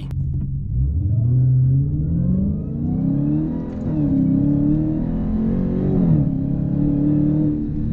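2020 Dodge Challenger Hellcat Widebody's supercharged 6.2-litre V8 accelerating hard from a standstill in a 0-60 mph run, power limited to 500 horsepower. The engine note climbs from about a second in, drops back at upshifts about four and six seconds in, and climbs again between them.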